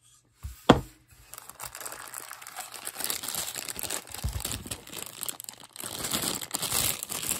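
A single sharp knock less than a second in, then clear plastic bag crinkling steadily as hands lift out and handle a wristwatch sealed inside it.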